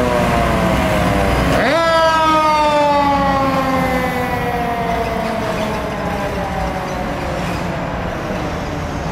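Fire truck siren on a Seagrave tractor-drawn aerial ladder truck responding. The siren winds up sharply about one and a half seconds in, then slides slowly down in pitch for several seconds, over the low rumble of the truck's engine.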